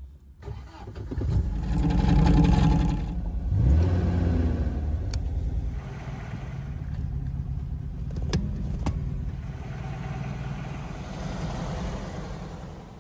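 1973 MGB's four-cylinder engine cranking and catching about a second in, revving briefly, then settling to a steady idle. A few sharp clicks come in the middle.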